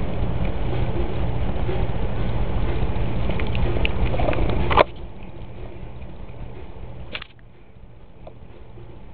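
A cat rubbing and pawing at a camera and its strap makes close rustling and scuffing on the microphone, with a low rumble under it. A sharp knock about five seconds in leaves it quieter, and another click comes about two seconds later.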